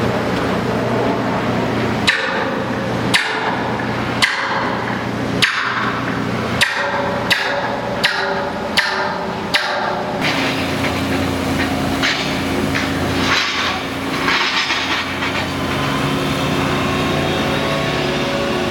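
Hammer blows on construction steelwork, nine sharp ringing strikes at about one a second, then fainter irregular knocks, over a steady hum of machinery.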